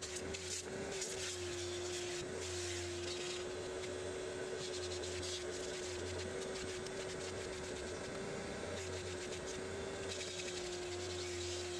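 A machine running with a steady hum that holds one pitch throughout, under a lower hum that comes and goes. Over it is the scratchy rustle of a microfiber towel wiping a car's interior door panel.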